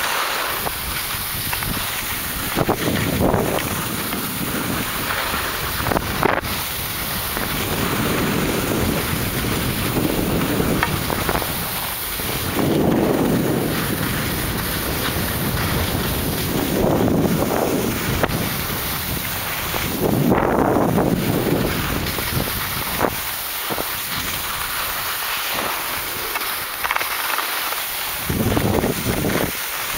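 Wind rushing over the microphone of a handheld camera carried by a moving skier, mixed with the hiss and scrape of skis on packed snow, swelling and easing every few seconds.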